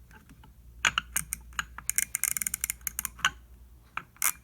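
A quarter-inch drive ratchet being worked by hand, its pawl clicking in a quick run about two seconds in, among scattered single clicks of the tool being handled.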